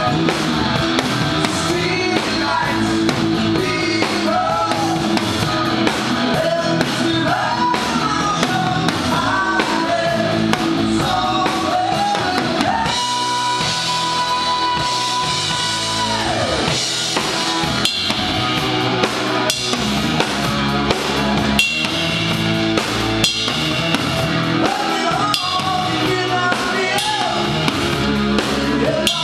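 Live rock band playing: sung lead vocal over keyboards, electric guitar and a drum kit, heard from on stage close to the drums. About halfway through, one note is held for around three seconds before the song moves on.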